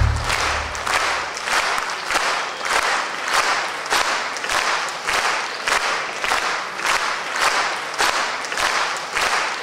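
Theatre audience applauding, the clapping falling into a steady unison beat of about two claps a second.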